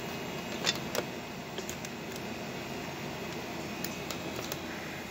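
A few light clicks and taps from handling small hand tools, the clearest about a second in, over a steady background hum.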